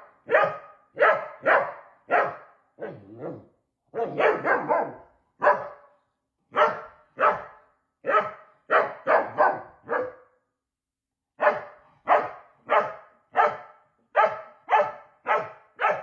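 A dog barking over and over, about one to two barks a second, with a short pause partway through.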